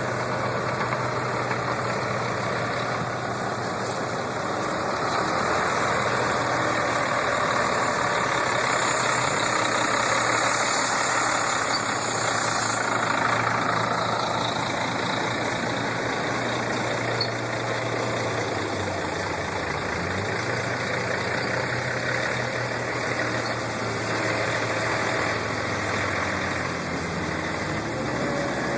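Heavy diesel engine of construction machinery running steadily, with a louder, noisier stretch about 8 to 13 seconds in.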